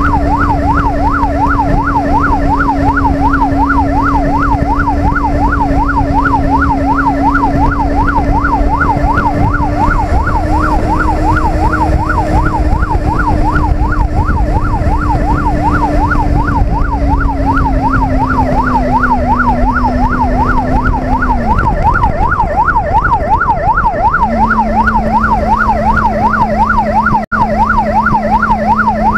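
Police motorcycle siren in a fast yelp, sweeping up and down about three times a second. Under it run the wind rush and the steady hum of the Benelli QJ BJ600J-A's 600cc inline four-cylinder engine, which fades out about 22 seconds in and returns at a lower pitch about two seconds later.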